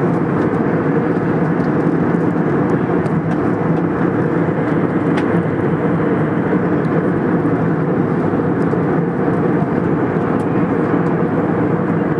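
Steady engine and airflow noise inside a jet airliner cabin in flight, an even rush with most of its weight low, and a few faint ticks over it.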